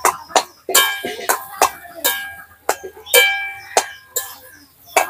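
Metal spatula stirring and scraping a spiced mashed-potato mixture in a metal karai, knocking against the pan about twice a second, some knocks ringing briefly.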